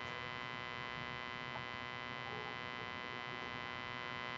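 Steady electrical hum, a buzz of many fixed tones that holds level and unchanging.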